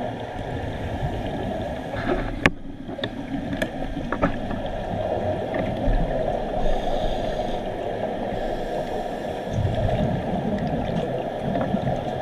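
Muffled underwater rushing and gurgling in a scuba diving pool, with a few sharp clicks about two to four seconds in. It grows louder and deeper for a second or two about nine and a half seconds in.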